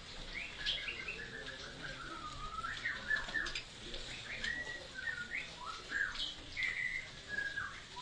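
Caged white-rumped shamas (murai batu) singing: a continuous run of varied whistled notes and chirps, rising and falling.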